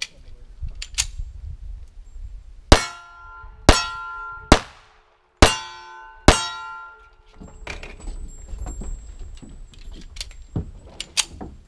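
Five gunshots about a second apart, each followed by the ringing of a hit steel target. After them come quieter metallic clicks and knocks as the guns are handled.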